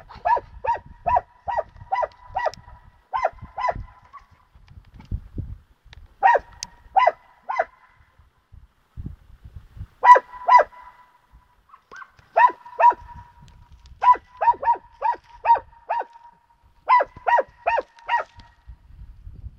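Alpine dachsbracke hounds baying at a wild boar they are holding at bay: quick, evenly pitched barks come in runs of two to eight, with short pauses between the runs. This is the steady bay bark a boar-hunting hound gives to signal that the boar has been stopped.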